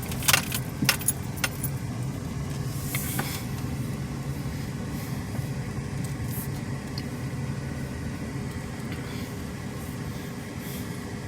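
Car engine running steadily with a low hum, and a few sharp clicks or rattles in the first couple of seconds.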